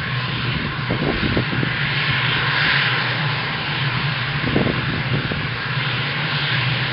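The turbofan engines of a twin rear-engined business jet running steadily as it taxis.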